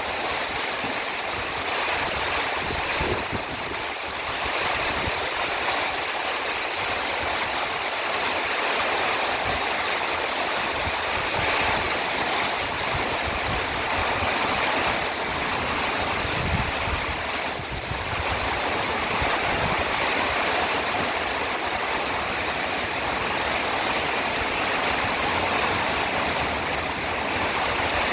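Heavy rain pouring down in a rainstorm: a dense, steady hiss of rainfall.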